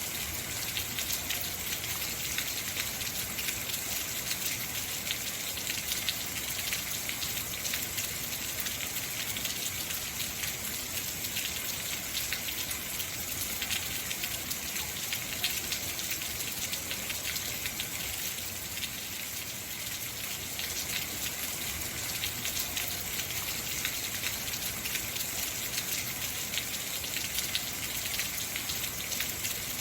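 Heavy rain falling steadily, a dense, even patter of drops striking hard surfaces.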